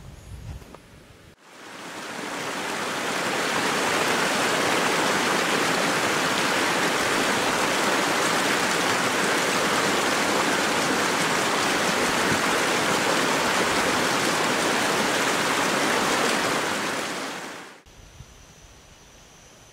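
Mountain stream rushing over rocks: a steady, even water noise that fades in about a second and a half in and fades out near the end.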